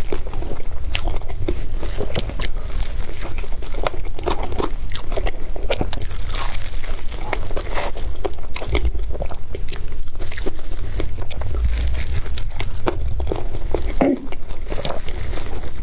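A person biting and chewing an egg wrap close to the microphone, with many short, irregular clicks and snaps of the mouth and food.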